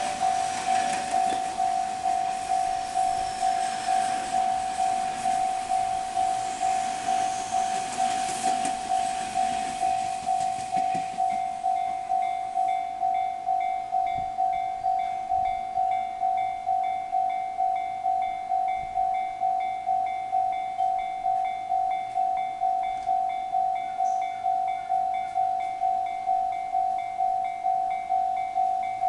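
Japanese level-crossing warning bell ringing steadily in a rapid clang, a little under two strokes a second. A train passes over the crossing at the same time, and its rumble fades away about eleven seconds in while the bell keeps ringing.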